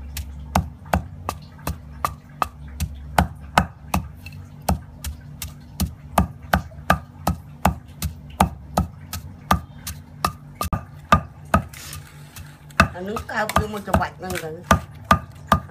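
Wooden pestle pounding lemongrass paste in a heavy stone mortar: a steady run of dull thuds at about three strokes a second.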